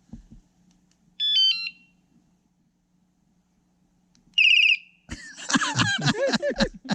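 Cheap electronic bike alarm sounding short test tones from its loudspeaker: a quick run of falling electronic notes about a second in, then a brief warbling chirp about four and a half seconds in. People's voices break in near the end.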